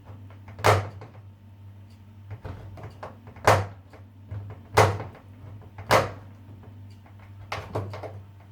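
Swiss Army knife can-opener blade levering its way around the lid of a tin can, each stroke a sharp crunching cut through the metal: about six strokes at uneven intervals, two in quick succession near the end.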